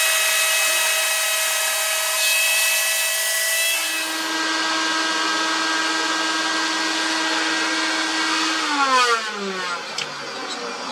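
Electric power tool motor running steadily at speed, its tone shifting about four seconds in, then winding down near the end.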